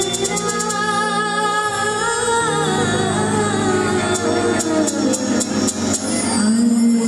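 Live band playing, with a female singer singing into a microphone over held chords, electric guitar and bass; a fast, high shaker-like ticking comes in near the start and again past the middle.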